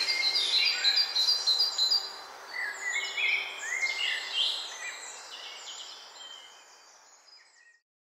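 Songbirds singing, many short chirps and warbling phrases overlapping, fading out steadily until silence near the end.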